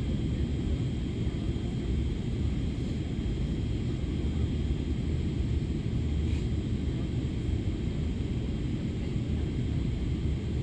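Airliner cabin noise on the landing approach: a steady low rumble of engines and airflow with a faint constant high whine.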